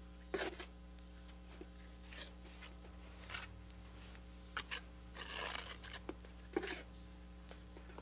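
Steel trowel scraping wet mortar onto the edge of a brick ('buttering' it): a series of short rasping strokes, with one longer scrape about five and a half seconds in.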